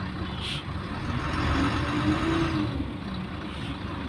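Güleryüz Cobra GD-272 city bus running, its engine noise swelling from about a second in and easing off near three seconds. A short hiss is heard just after the start.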